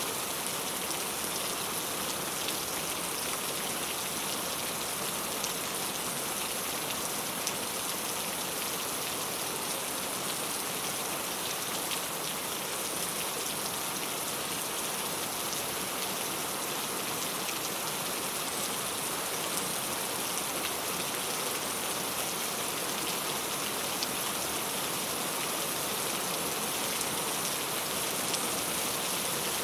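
Steady rain falling on a clay tile roof: an even hiss of rain with scattered individual drop ticks.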